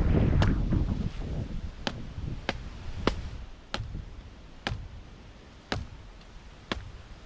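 A series of sharp, separate knocks or chops, about eight in all, roughly one every half second to a second. Low rumbling noise fades over the first second.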